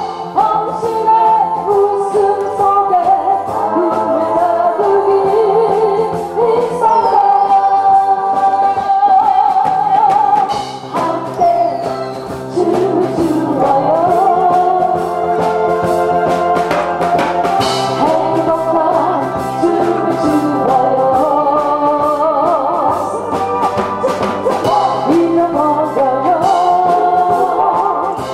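A woman singing into a microphone over instrumental accompaniment, her held notes wavering with a wide vibrato.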